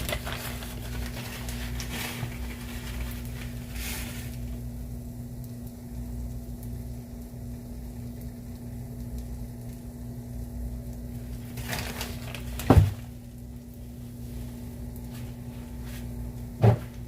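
Pancake batter frying in oil in a pan, a low sizzle over a steady hum. Two sharp knocks stand out, one about two-thirds of the way through and one near the end.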